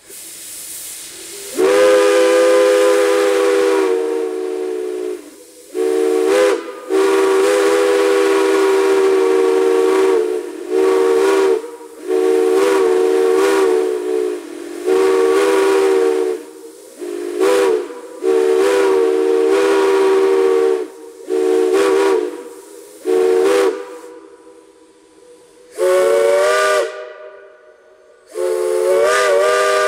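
Chime steam whistle blown in a run of long blasts and short toots, sounding a chord of several tones, with a hiss of steam as it opens. On the last two blasts near the end the pitch slurs upward.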